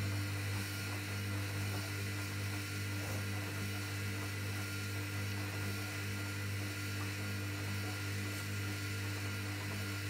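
Hoover front-loading washing machine on its main wash: the drum motor hums steadily as the drum turns the laundry through the water, with a wash of water sloshing underneath.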